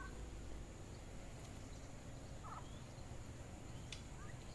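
A few faint, short Japanese quail calls, about three spread over a few seconds, above a steady low background.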